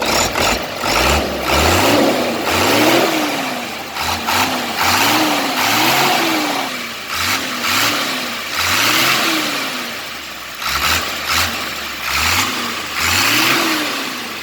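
Hino Lohan truck's diesel engine being blipped on the throttle again and again, about a dozen short revs that each rise and fall back toward idle, while its fuel setting is tuned for more power.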